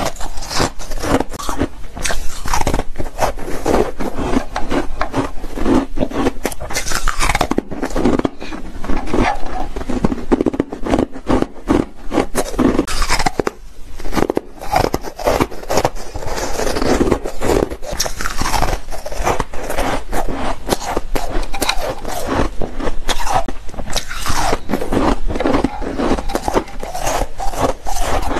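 Carbonate ice being bitten and chewed: a continuous stream of crisp, crackling crunches as the frozen discs break between the teeth.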